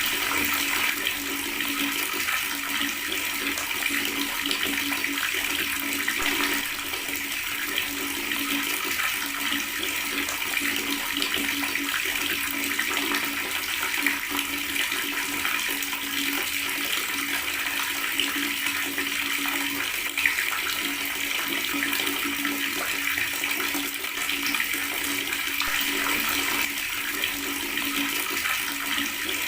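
Water running steadily from a tap and gurgling, an unbroken stream without pauses.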